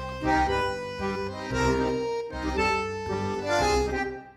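Background music: an accordion tune over a bass line.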